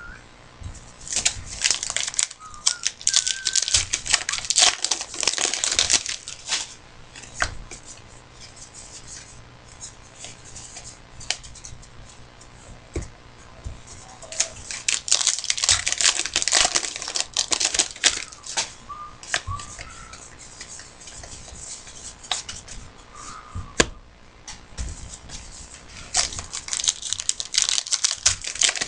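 Trading card pack wrappers being torn open and crinkled, in three long bouts of ripping and crackling, with quieter shuffling of cards between.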